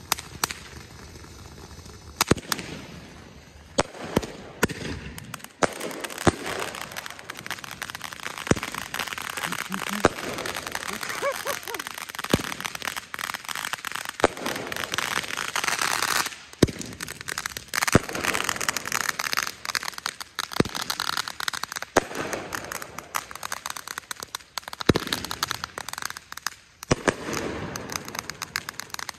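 Fireworks going off: sharp bangs every second or two over a steady crackle of firecrackers, the crackle densest about halfway through.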